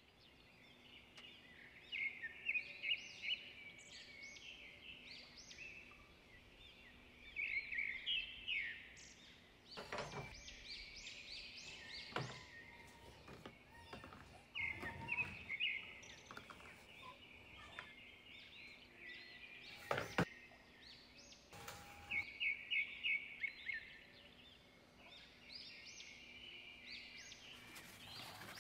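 Small birds chirping in quick runs of high notes, again and again, with a few knocks and clatters from household items being moved around a kitchen counter.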